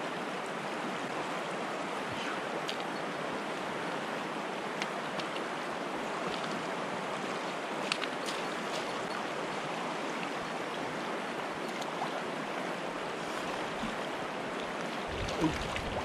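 Mountain stream running high with snowmelt: a steady, even rush of water, with a few faint clicks.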